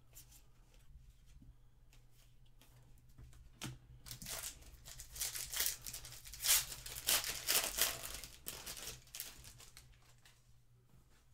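A foil trading-card pack wrapper being torn open and crinkled by hand. The crackling starts about four seconds in, peaks in the middle and dies away near the end.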